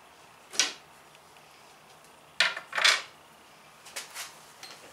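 Hands working blue painter's tape to hold a metal straight edge against a plywood wall: three short scraping, rustling bursts in the first three seconds, then a few fainter ones near the end.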